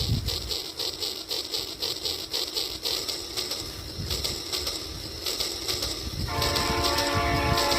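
Toy train's running sound, a fast even clacking rhythm, then its horn sounding steadily from a little past six seconds in.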